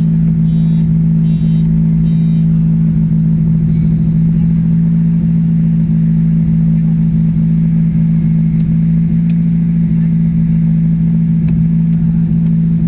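Chevrolet Kadett's four-cylinder engine idling through a straight-pipe exhaust with no mufflers, heard from inside the cabin as a loud, steady low drone.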